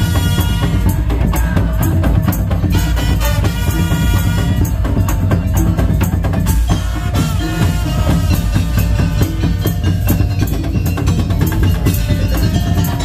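Madurese tong-tong music: a loud percussion ensemble playing a steady driving rhythm with a melody over it.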